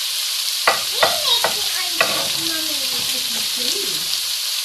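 Onions sizzling steadily in a frying pan as they saute. A few sharp knife taps on a chopping board land in the first two seconds.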